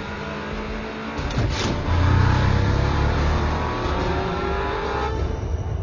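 Car engine revving and accelerating hard, its pitch climbing and growing louder about two seconds in.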